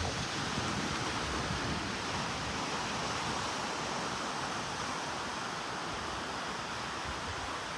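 Atlantic Ocean surf breaking and washing up a beach: a steady, even hiss of waves.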